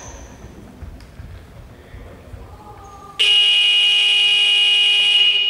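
Basketball scoreboard buzzer sounding one loud, steady electronic tone for about two seconds, starting about three seconds in, over the low murmur of a sports hall.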